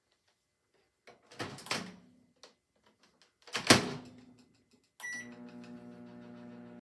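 Cuisinart microwave door opened and then shut with a sharp knock, followed by a single keypad beep about five seconds in, after which the microwave starts running with a steady low hum.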